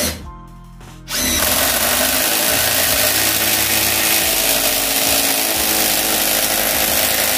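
Cordless 18V impact driver hammering a long 150 mm self-drilling screw into a stack of 2x4 lumber. It starts about a second in and runs steadily for over six seconds.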